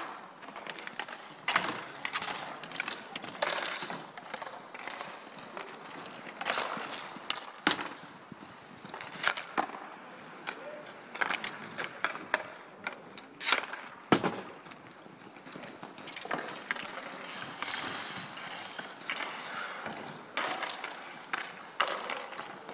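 Inline hockey play: inline skate wheels rolling and scraping on the rink surface, broken by frequent sharp clacks of sticks and knocks, irregularly spaced, a few of them much louder than the rest.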